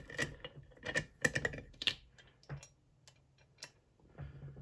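Small sharp metal clicks and clinks as a dimple lock and lockpicking tools are handled. The clicks come in a quick cluster over the first two seconds, then as a few single clicks.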